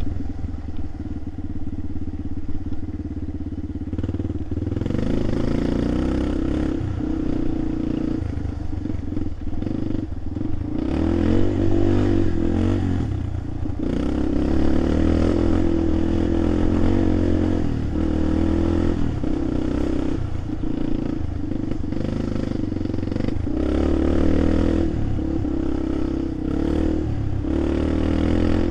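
A vehicle engine running, its note swelling and dropping back again and again as the throttle is opened and eased off.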